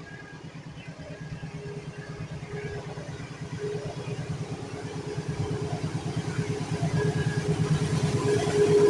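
KAI diesel-electric locomotive approaching at the head of a passenger train, its engine a steady low throb that grows steadily louder as it nears.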